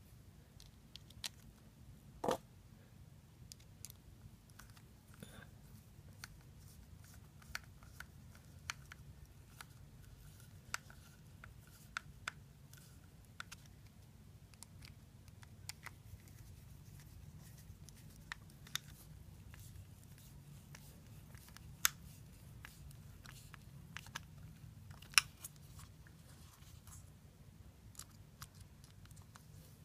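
Scattered small clicks and taps of a screwdriver against the screws and body of a Shimano spinning reel as its body screws are turned and the reel is handled, a few sharper than the rest, over a low steady hum.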